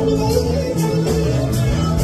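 Loud music with a steady beat, guitar-like notes and some singing.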